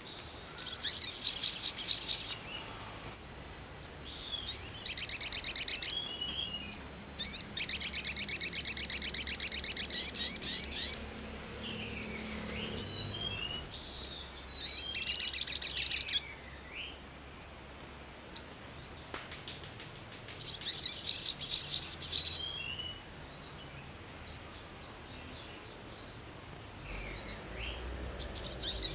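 Male olive-backed sunbird singing in bursts of very fast, high trills, about six phrases of one to three seconds each, with short chips in the gaps between them.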